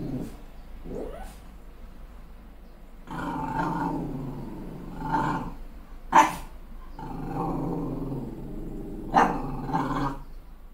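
Malshi (Maltese–Shih Tzu cross) puppy growling in long low rumbles, broken by sharp barks, the loudest about six seconds in and another about nine seconds in. She is growling and barking at her own reflection in a mirror, taking it for another dog.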